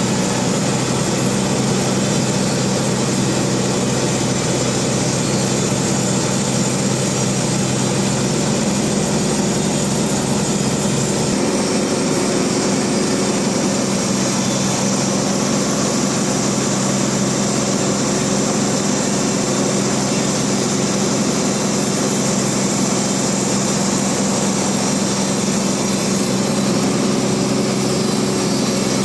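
Large sawmill band saw running steadily while milling a trembesi (rain tree) log, a constant mechanical drone with a steady low hum and a broad hiss.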